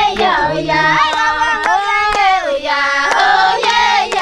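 A group of high voices singing a traditional goodbye song together in long held, gliding notes, with hand claps here and there.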